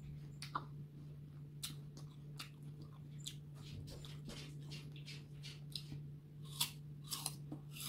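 A mouth chewing crisp green apple, with many short wet crunches. Near the end she bites into a fresh slice, giving the loudest crunches.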